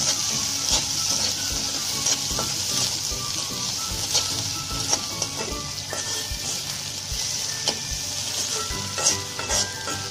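Sliced onions sizzling as they fry in hot oil in a metal wok, with a spatula scraping and knocking against the pan at irregular moments as they are stirred.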